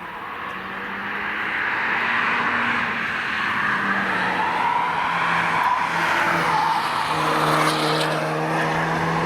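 A car driving past on a wet track. The hiss of its tyres on the wet road builds over the first two seconds, with a steady engine note underneath that grows stronger near the end.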